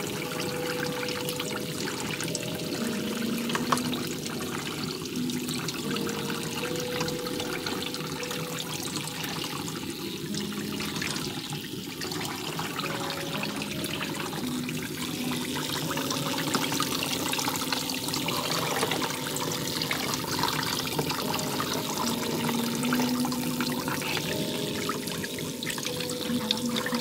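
Water running and trickling steadily into a head spa shampoo basin as a client's hair is washed.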